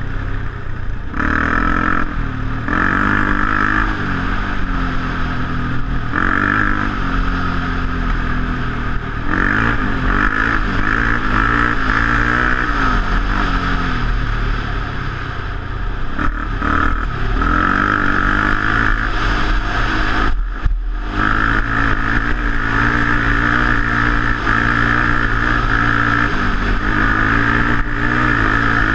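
Off-road vehicle engine running along a dirt trail, its pitch rising and falling with the throttle, with a brief sharp drop in sound about two-thirds of the way through.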